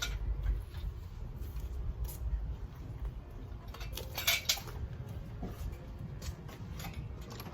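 Scattered light metallic clinks and clicks of hand tools and engine parts being handled, with a louder clatter about four seconds in, over a steady low rumble.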